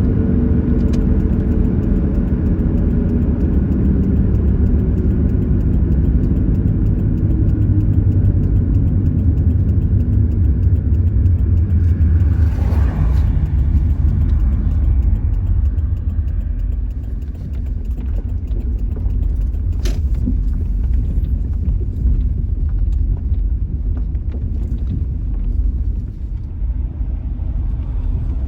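Steady engine and road rumble heard from inside a Subaru's cabin while driving, with the engine tone sinking slightly in the first few seconds and a few light clicks later on.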